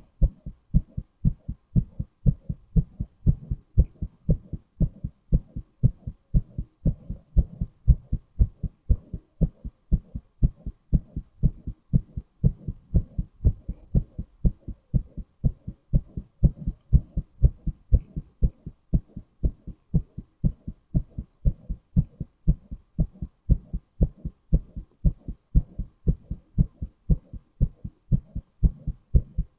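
A man's heartbeat, recorded up close: steady, regular low thumps that repeat evenly without a break.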